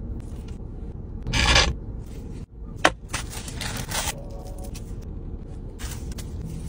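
Food-handling sounds: a loud scrape a little over a second in, a sharp click near three seconds, then crinkling paper as flatbread naan is lifted out of its paper wrapping, with another short rustle near the end.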